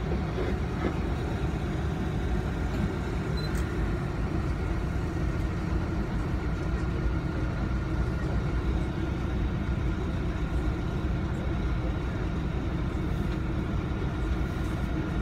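Tour boat's engine running with a steady low drone while the boat cruises along a canal, heard from aboard.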